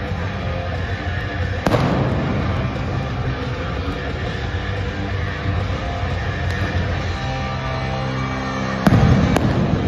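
Loud arena music over the PA system, cut through by sharp pyrotechnic blasts: one about two seconds in, and two close together near the end, the first of these the loudest, as flame jets fire.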